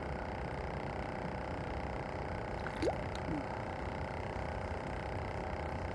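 Wind rumbling on the microphone, with a brief rising chirp and a faint click about three seconds in.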